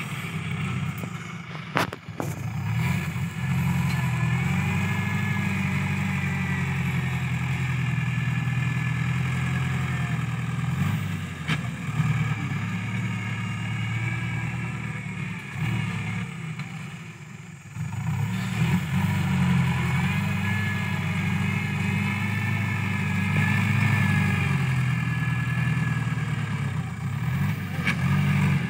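New Holland TS90 farm tractor's diesel engine working under load as it pushes and levels sand with its front blade, with a few sharp knocks. The engine eases off briefly about two-thirds of the way through, then picks up again.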